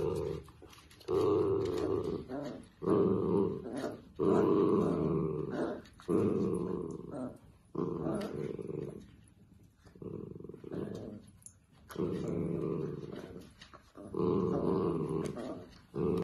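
Dachshunds growling while tugging at a fleece dog bed: a string of rough growls, each about a second long, one after another with short breaks.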